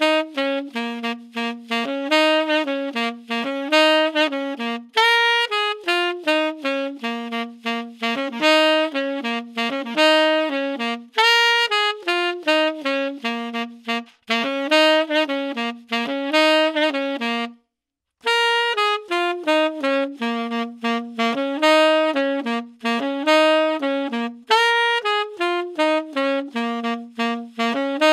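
Solo tenor saxophone playing the same short jazz phrase several times, recorded raw with no reverb or EQ through dynamic microphones: an Audio-Technica ATR2100, then a Shure SM57 after a brief silent cut about two-thirds of the way in.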